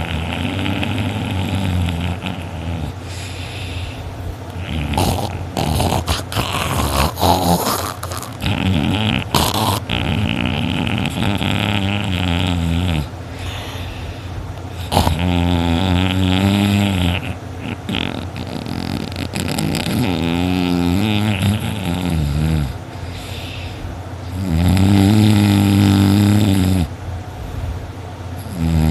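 A person snoring loudly in deep sleep after heavy drinking: long, rasping snores that come back every few seconds, with a patch of shorter, irregular noises in the first third.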